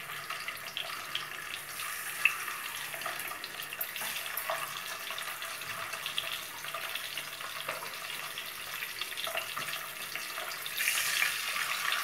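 Hot oil with turmeric sizzling steadily around whole peeled boiled eggs frying in a nonstick kadai, with scattered small crackles. The sizzle grows louder near the end.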